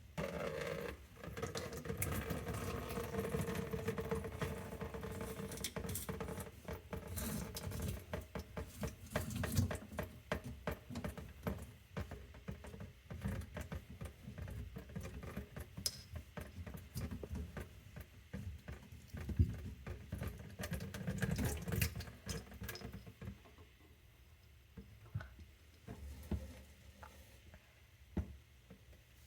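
Water from the disconnected bathroom sink drain pouring and splashing into a catch container, mixed with knocks and clatter of the plastic drain parts being handled. Near the end it thins to scattered drips and clicks.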